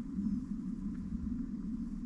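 A car running, heard as a steady low rumble.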